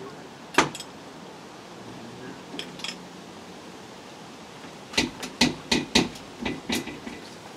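Sharp knocks and taps against the camper's rear wall panel and metal framework as it is worked into place: one knock about half a second in, two faint taps near three seconds, then a quick run of about eight knocks between about five and seven seconds in.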